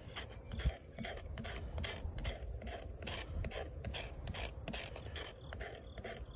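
Extrema Ratio Tuscan knife blade scraping hard wood in a run of short, uneven strokes, taking off thin shavings, over crickets chirping in the background.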